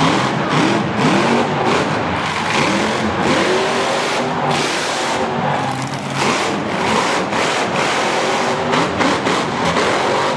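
Monster truck engine revving hard again and again, its pitch rising and falling, with frequent sharp knocks as the truck drives over crushed car bodies.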